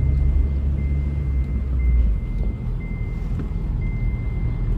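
Car cabin while driving: low engine and road rumble that eases about two seconds in, with an electronic warning beep repeating about once a second, each beep almost a second long.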